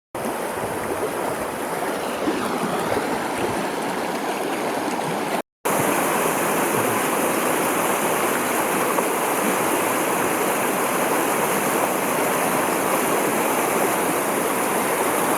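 Creek water flowing steadily, a dense even rush. It drops out for a moment about five and a half seconds in and comes back slightly louder.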